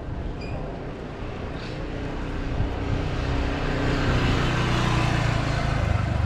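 A motor vehicle passing close by. Its engine noise swells over several seconds and is loudest near the end, with a low engine tone that sags slightly in pitch as it goes by.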